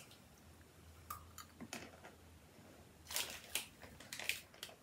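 Faint crunching of a crisp pretzel stick being bitten and chewed, in short irregular crunches, a few around a second in and a denser run from about three seconds in.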